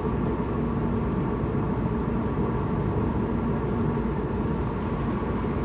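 Steady engine and road noise from a car being driven, heard inside the cabin.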